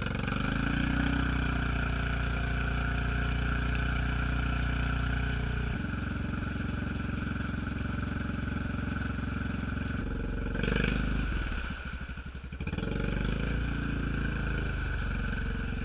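Honda Rubicon ATV's single-cylinder engine running steadily under throttle in second gear as the machine floats. About eleven seconds in the engine briefly drops off, then picks back up.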